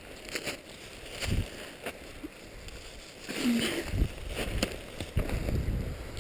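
Footsteps in snow on a steep slope: uneven thuds and crunches at an irregular pace, roughly a step every second.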